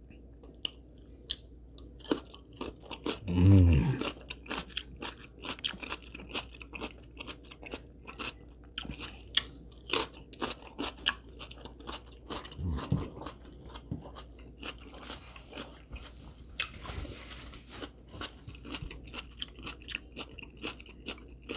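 Close-miked chewing of raw cucumber, with many crisp, wet crunches and mouth clicks. A short hummed "mm" comes about three and a half seconds in.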